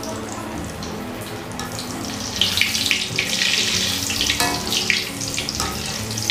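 Marinated chicken pieces deep-frying in hot oil in a steel kadai on high heat: a dense crackling sizzle that grows louder about two and a half seconds in.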